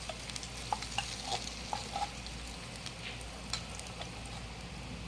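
Food frying: a steady sizzle with scattered sharp pops of spattering oil, most of them in the first couple of seconds.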